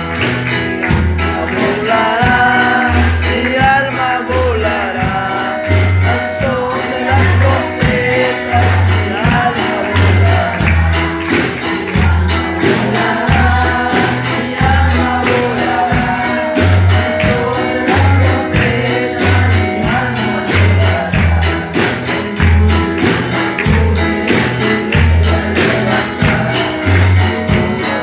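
Live church worship band playing an upbeat praise song through PA speakers: drum kit keeping a busy steady beat, keyboards and a pulsing bass line under sung vocals.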